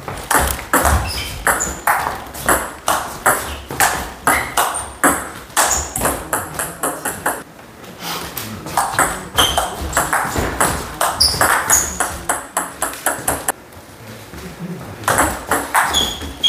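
Table tennis ball being hit back and forth in rallies: crisp clicks of ball on paddles and table, about two a second, in runs separated by short pauses about halfway through and near the end. A few brief high-pitched squeaks sound between hits.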